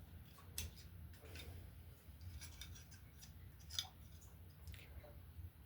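Faint, scattered clicks and light scrapes of small steel parts of a Berthier rifle's trigger group being handled, as a short screw is worked into the spring-loaded housing. There is one sharper click a little before four seconds in.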